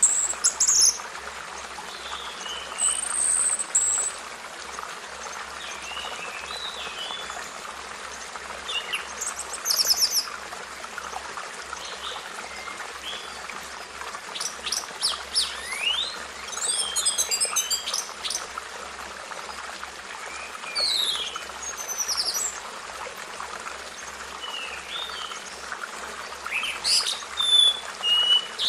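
Birds calling and chirping: many short, high-pitched calls and quick sweeping notes, scattered irregularly over a steady background hiss.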